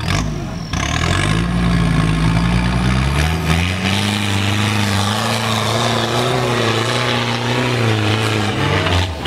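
Off-road 4x4's engine revving hard under load on a steep dirt climb. The pitch rises over the first couple of seconds, stays high with small wavers, then drops just before the end.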